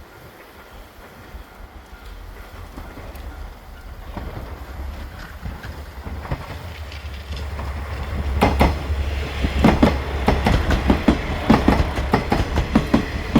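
Japanese KiHa diesel railcar approaching with a low rumble that grows louder, then from about eight seconds in the rhythmic clatter of its wheels over rail joints as it passes close by.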